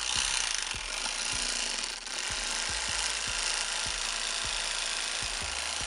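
Corded electric fillet knife running steadily as its blades saw along the side of a bowfin.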